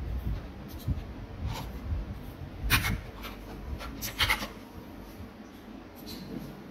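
A few short scratching and rubbing strokes, the loudest about three seconds in and another cluster about a second later.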